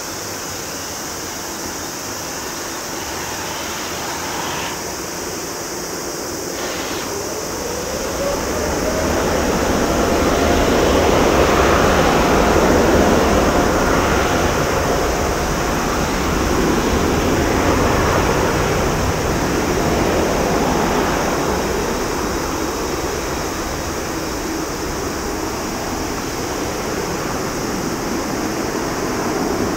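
Boeing 787-10's twin turbofan engines spooling up to takeoff thrust: a rising whine starts about seven seconds in and grows into a loud, steady jet noise as the airliner rolls down the runway.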